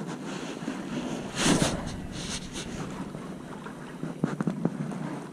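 Wind buffeting the microphone over small waves lapping against a boat's hull, with a louder rush about a second and a half in and a few light knocks near the end.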